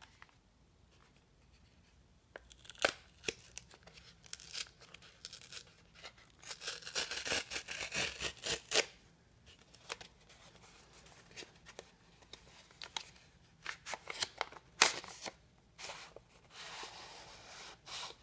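Stiff cardboard mailer being torn open by hand: rasping stretches of paperboard tearing, mixed with sharp clicks and taps of the mailer being handled, the loudest a single sharp click about two-thirds of the way through.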